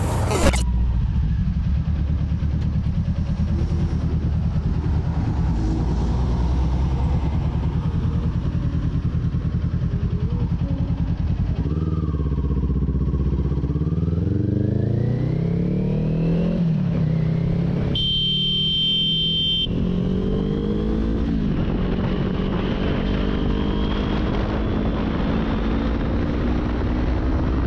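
Motorcycle engine running under way, its pitch climbing as it accelerates and dropping back at each gear change, several times over.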